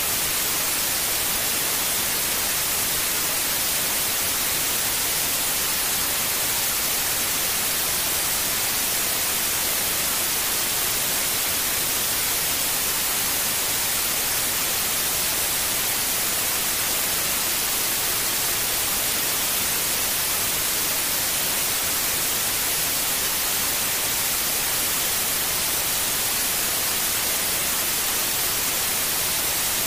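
Steady, unchanging white noise, an even hiss with no pauses or changes, played as a sleep aid for a newborn.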